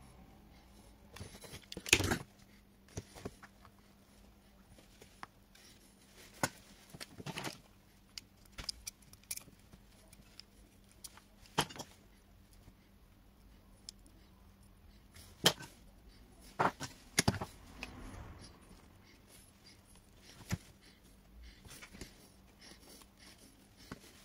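Metal pliers clicking and tapping against a Samsung washing machine's control circuit board and a small component held in them: scattered sharp clicks, about a dozen, a few much louder than the rest.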